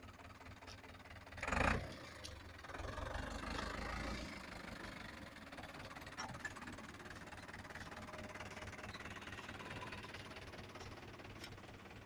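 Zetor tractor's diesel engine running, its low rumble stronger for a second or so about three seconds in, with a brief loud noise just before.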